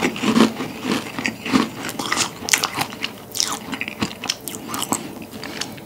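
Close-miked crunching and chewing of a large meringue cookie: dense, irregular crisp crackles that thin out and fade toward the end.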